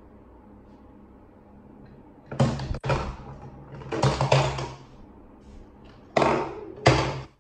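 Four short, sharp sounds from a LeapFrog Peek-A-Shoe plastic octopus toy, about two and four seconds in and twice near the end. The last two come as a hand presses the toy's green shoe.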